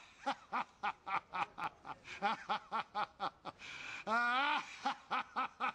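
A man laughing hard from a film clip, in quick repeated 'ha' bursts about four a second, with one longer wavering laugh about four seconds in.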